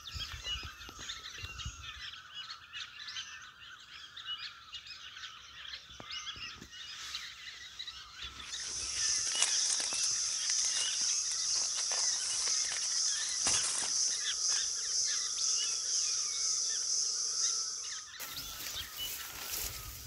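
Birds chirping, many short calls throughout. About eight seconds in, a steady high buzz joins them and stops about two seconds before the end.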